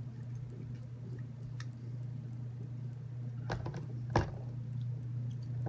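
Light clicks and knocks of a screwdriver and small screws against black plastic TurtleBot3 waffle plates during hand assembly, with two sharper clicks about two-thirds of the way through, over a steady low hum.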